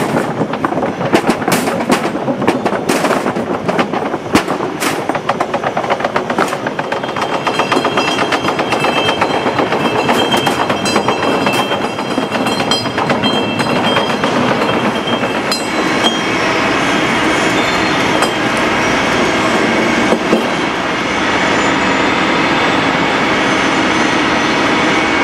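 Metal castings rattling down a steel vibrating conveyor trough and clattering into a wire-mesh steel bin: a continuous dense rattle with many sharp metallic knocks, busiest in the first several seconds. In the last third the sound turns steadier, with held tones over the rattle.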